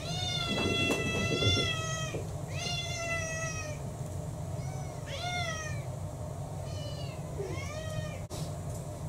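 House cats meowing for their food, about five meows in a row, the first a long one of about two seconds and the later ones shorter. A steady low hum runs underneath.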